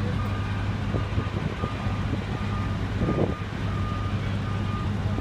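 Fire engine's diesel engine running with a steady low drone, with a high electronic beep repeating in short pulses over it.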